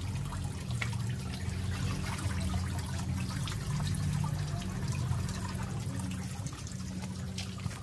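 Water running and dripping out of a plastic basket of catfish as it is lifted from a tank of water, over a steady low hum.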